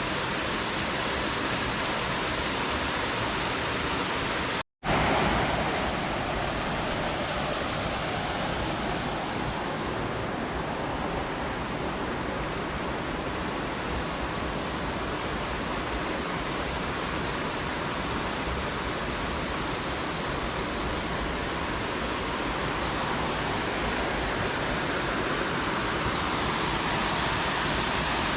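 Steady rushing of a waterfall cascading into rock pools, a constant even roar of falling water. About five seconds in, the sound cuts out for an instant and then comes back.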